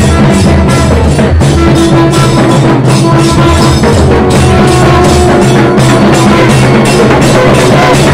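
A South Indian temple procession band playing loudly. Barrel drums are beaten with sticks in a fast, steady rhythm, and wind instruments hold long notes over the beat.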